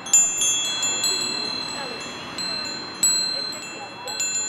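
Chimes ringing: several bright, high metallic tones struck one after another and left to ring over each other, with a louder strike just after the start and another about three seconds in, over a faint hiss of background noise.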